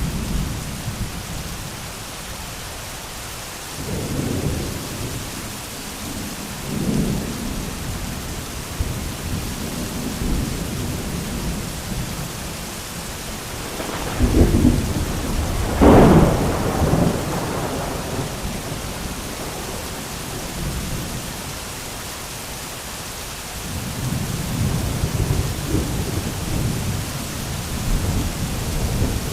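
Heavy rain falling steadily under a thunderstorm, with thunder rolling through it. Low rumbles come a few seconds in and again a few seconds later. The loudest thunder, a clap and rolling rumble, comes about halfway through, and rumbling builds again near the end.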